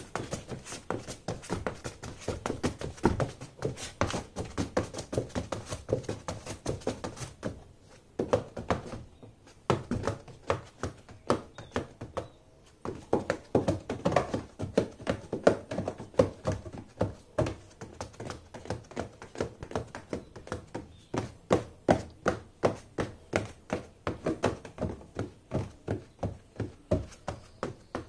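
Silver high-heeled pumps tapping rapidly and steadily on the bottom of a cardboard box, hollow thunks a few times a second with two short pauses in the first half.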